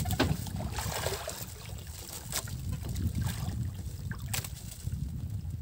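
Steady low wind rumble on the microphone with the wash of water around a small fishing boat, broken by scattered short knocks.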